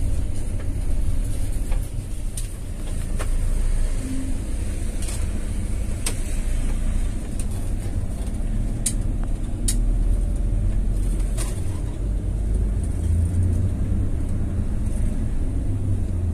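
Intercity bus heard from inside the cabin while driving: a steady low engine rumble with road noise, and a few light clicks and rattles.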